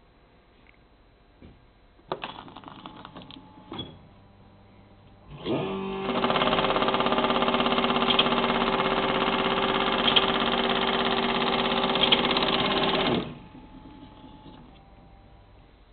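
Vacuumatic Vicount paper counting machine running for about seven seconds as it counts through a clamped stack of sheets: a loud, steady, very rapid mechanical rattle with a hum under it, starting about five seconds in and stopping abruptly. Before it come a few short knocks and rustles of handling.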